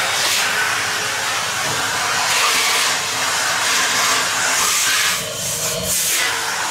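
Vacuum cleaner running steadily, its corrugated hose used to suck out the valve holes of a pipe organ's pedal chest. The sound dips and shifts slightly a little after five seconds in.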